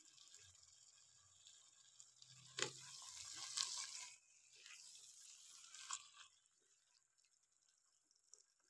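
Mostly near silence, broken by faint sounds of a plastic spatula stirring wet spinach and potatoes in a nonstick pot. There is a soft knock about two and a half seconds in, followed by a second or so of wet hissing and squelching. A weaker stretch of stirring ends with a tap about six seconds in.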